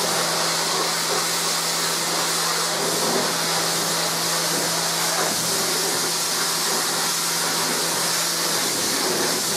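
Kärcher K5.740 electric pressure washer running: the pump motor hums steadily under the hiss of the high-pressure water jet spraying a plastic picnic table.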